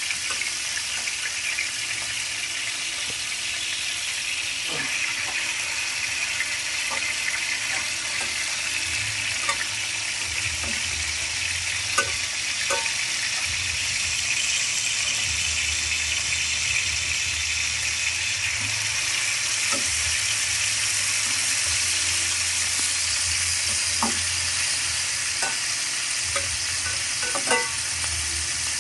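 Bluefin tuna steaks sizzling in hot oil in a frying pan: a steady hiss with a few sharp pops of spattering oil scattered through it.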